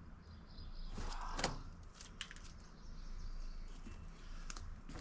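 Scattered clicks, scrapes and knocks of hand tools working at screws embedded in a log, with one louder knock about a second and a half in.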